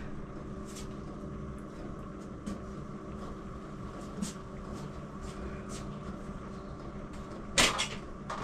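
Steady low hum in a small shed, with faint scattered clicks and one sharp knock about three-quarters of the way through as a dirt bike is handled.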